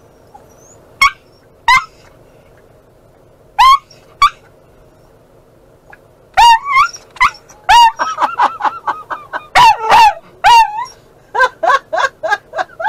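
Dog barking and whining in short, high-pitched yips: a few single yips at first, then a fast, excited run of them through the second half.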